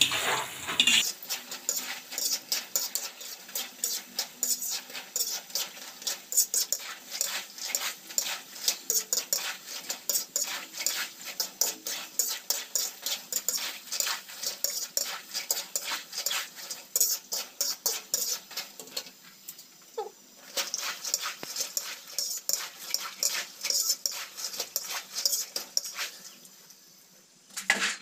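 Wire-mesh skimmer scraping and tapping against an iron kadhai as makhana (fox nuts) are stirred while frying in oil: a rapid, uneven run of metallic scrapes and clicks.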